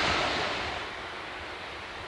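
Steam train running away into the distance, its noise fading over the first second and leaving a faint steady rumble.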